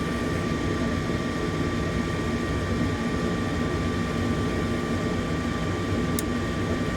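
Nordyne gas furnace's fan running steadily with a whirring hum through its start-up, before the burners light; a faint click about six seconds in.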